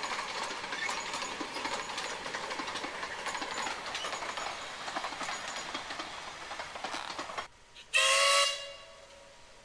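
Narrow-gauge steam train's carriages clattering past over the rail joints. After a cut, about 8 s in, a steam locomotive whistle gives one short loud blast of steady pitch.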